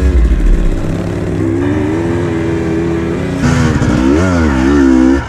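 GasGas enduro dirt bike engine under throttle, its revs rising and falling. The revs hold steady for a moment in the middle, then swing up and down several times in quick blips near the end.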